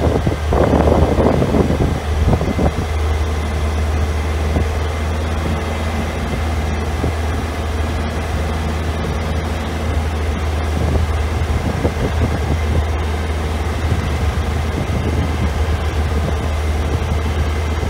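Open-sided safari game-drive vehicle driving, heard from on board: a steady, loud low engine hum with road noise. It is noisier in the first couple of seconds.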